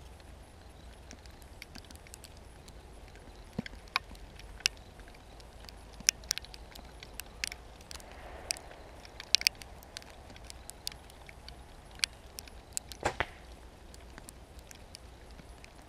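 Irregular sharp clicks and snaps, some louder than others, with a louder cluster late on, over a steady low rumble.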